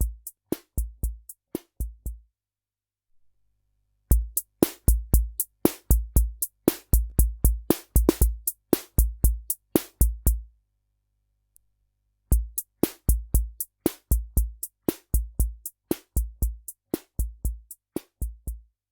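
Korg SR-120 Mini Pops analog drum machine playing its preset Rock rhythm: low bass-drum thumps under quick, sharp high ticks. The pattern stops twice for about two seconds, a couple of seconds in and just past the middle, restarts each time, and stops again near the end.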